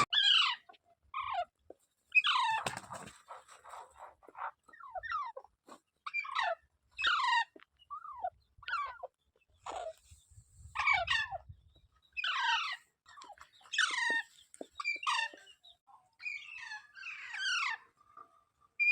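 Parrot calling over and over with short, harsh screeches that slide downward in pitch, about one a second.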